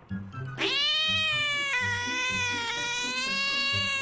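A cat's long, drawn-out meow: it starts about half a second in, rises quickly, then holds for about three seconds with its pitch sagging slightly.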